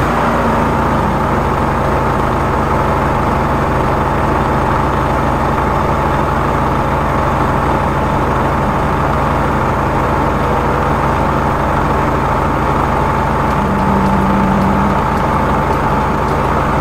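Drain-cleaning machine running steadily: a constant motor hum with a thin steady whine as its cable turns down a storm drain to cut out tree roots.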